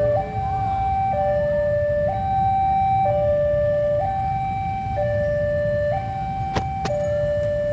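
Railway level-crossing warning alarm sounding, an electronic two-tone signal switching between a lower and a higher note about once a second, over a low rumble. A short sharp click near the end.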